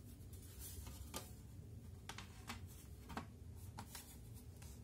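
Faint, irregular light clicks and handling noise as the plastic bottom casing of an HP EliteBook 745 G3 laptop is fitted back on.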